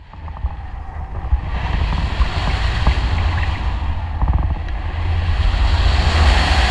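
Wind rushing over the camera microphone during paraglider flight: a heavy, buffeting low rumble with a broad hiss, growing louder toward the end as the glider banks steeply.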